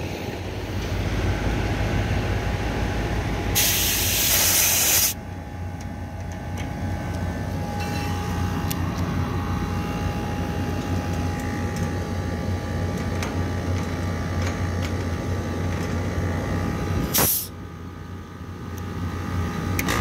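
Air-conditioning condensing unit running with a steady hum. About four seconds in, refrigerant hisses loudly for about a second and a half as a gauge hose fitting is loosened from a service port, and a second short spurt of hiss comes near the end as the liquid hose comes off. Only a little sprays out because the liquid hose was first bled back into the low side of the system.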